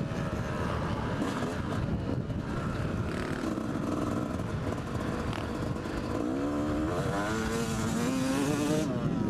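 Yamaha YZ250 two-stroke single-cylinder engine revving as the bike is ridden around a motocross track, its pitch climbing and dropping as the rider works the throttle, with rising sweeps in the second half. Wind and rough noise on the helmet-mounted microphone run under the engine.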